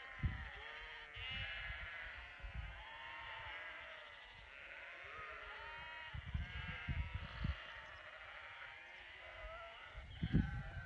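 A flock of sheep bleating without a break, many calls overlapping into a constant noisy chorus.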